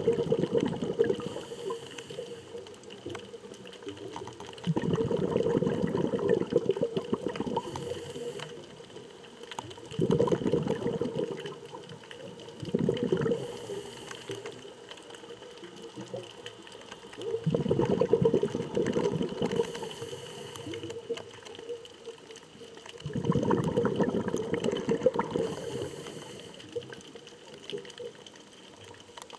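Shallow seawater surging back and forth, heard underwater: a low rushing swell every four to six seconds, fading between surges, over a faint steady high tone.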